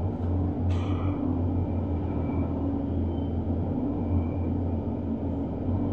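Steady low machinery hum with a constant drone and rumble, unchanging in level.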